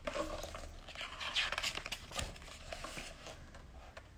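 Pages of a large hardcover photobook being turned by hand: paper rustling and sliding for about two seconds, then a few light taps and handling noises.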